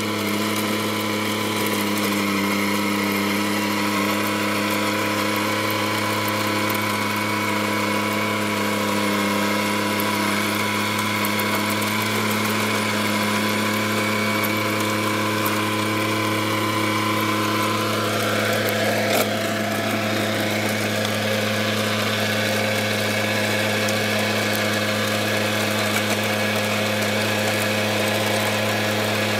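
A Kubota B2441's 24 hp three-cylinder diesel engine running steadily under load at about 2000 rpm, in low second gear, while driving a 4-foot, 24-blade Rotoking rotavator through damp soil.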